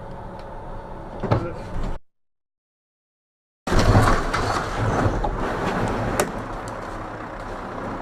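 Steady road noise with a sharp knock about a second in, then a short stretch of silence. Then a bus crashes into a metal roadside fence: a loud sudden impact followed by a long scraping, rushing noise of snow and debris that slowly dies down.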